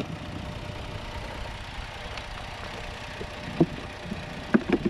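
Dodge Nitro's V6 idling steadily while fed engine oil in place of gasoline. Over it come sharp plastic clicks, one about three and a half seconds in and a quick few near the end, as the air box clips are undone.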